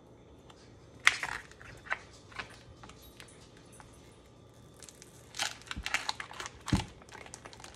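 Crinkling and rustling of a vacuum-sealed plastic sausage package as it is handled and turned on a wooden cutting board, with a sharp click about a second in and a denser spell of crackles and a knock near the end.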